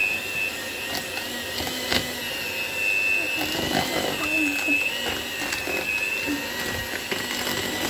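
Small electric kitchen appliance motor running with a steady high whine that wavers slightly in pitch, with a few soft knocks.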